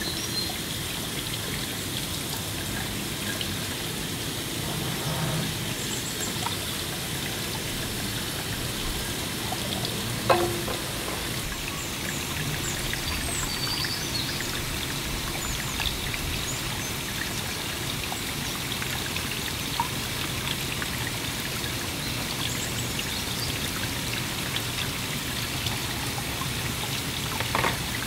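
Water running from a spout and splashing into a plastic trough as produce is washed by hand under it, a steady pouring sound. A couple of short knocks, the sharpest about a third of the way in and another near the end.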